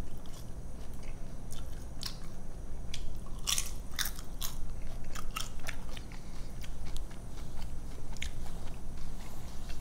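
Close-miked crunching and chewing of a tortilla chip topped with queso: irregular crisp crunches, thickest around the middle, with wet mouth sounds.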